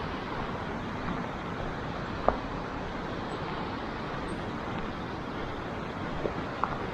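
Steady rushing noise, with a few short clicks about two seconds in and twice near the end.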